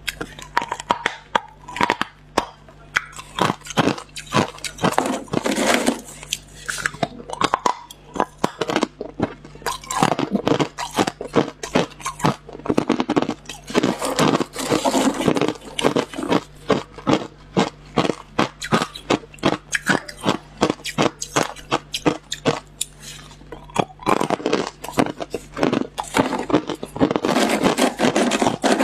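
Hard, clear ice chunks being bitten and crunched between the teeth close to a clip-on microphone: a dense, irregular run of sharp cracks and crunches, over a faint steady hum.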